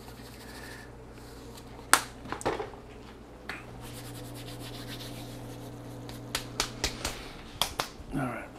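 Kitchen handling sounds: a few sharp knocks and light clicks of containers and utensils on the counter and stove. A steady low hum comes on about three and a half seconds in.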